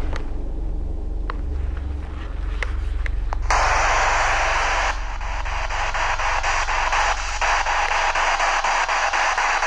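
Spirit box scanning the AM radio band. After a few faint clicks, a loud hiss of static switches on about a third of the way in. From about halfway it turns choppy, broken several times a second as the scan sweeps from station to station.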